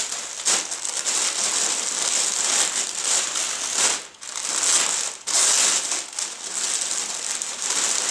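Continuous close rustling and crinkling from something being handled, with brief lulls about four and five seconds in.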